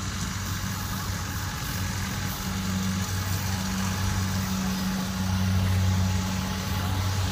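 Kubota DC70 Plus rice combine harvester running as it cuts, a steady diesel engine hum mixed with the noise of its cutting and threshing machinery, getting a little louder about five seconds in as it comes closer.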